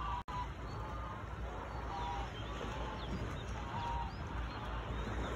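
Wind rumbling on the microphone, with a few faint short calls repeating about a second apart. The sound cuts out for an instant near the start.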